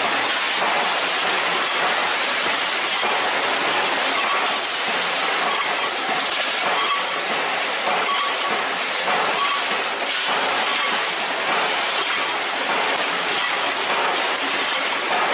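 Dense, steady metallic clatter of many steel hex nuts pouring from a machine's chute and tumbling into a heap, with faint individual clinks through it.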